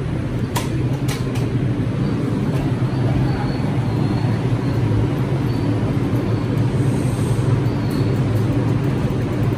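Bombardier R142 subway train standing at the platform, its onboard equipment giving a steady low hum. A few sharp clicks come in the first second and a half.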